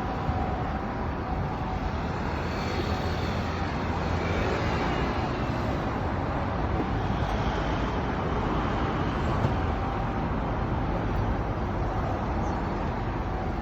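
Steady road traffic noise from passing vehicles, with the faint two tones of a Japanese ambulance siren in the background at the start, fading out and returning faintly near the end.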